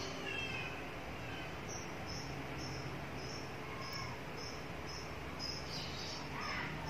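A cricket chirping steadily, about two to three short high chirps a second, starting about two seconds in, over a low background hiss.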